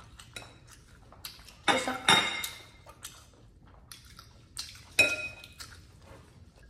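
A spoon and tableware clinking against ceramic bowls and plates during a meal: a short cluster of clatters about two seconds in, then one sharp clink that rings on briefly about five seconds in, with lighter taps between.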